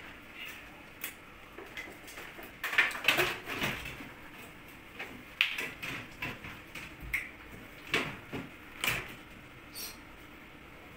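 Irregular clicks and knocks of an aluminium-framed kitchen cabinet door and its hardware being handled and fitted, with a small cluster of knocks about three seconds in and single knocks later on.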